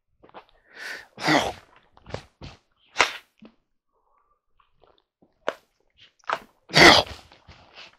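Close handling noise from a person moving about: a string of short rustles and scuffs with a few sharp clicks, two louder rustles about a second in and near the end.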